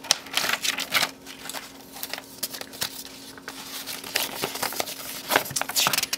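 Crinkling and rustling of plastic sheet and paper being handled and unfolded, with irregular small clicks and taps.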